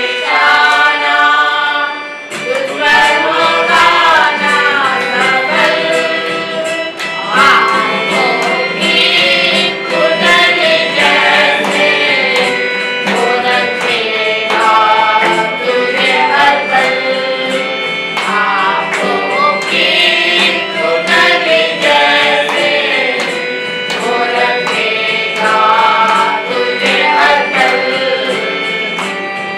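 A Christian worship song (aradhana geet), sung over instrumental accompaniment with percussion.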